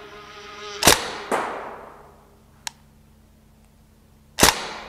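Northeast MP2A1 Uzi gas blowback airsoft SMG firing two single shots about three and a half seconds apart, each a sharp crack with an echoing tail. A softer knock follows the first shot a fraction of a second later.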